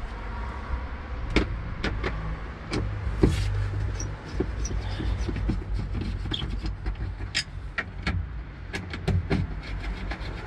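A gas-bottle bracket being screwed into a wooden floor by hand: a run of sharp clicks and knocks from the tool and hardware over a low steady rumble, with a short low hum about three seconds in.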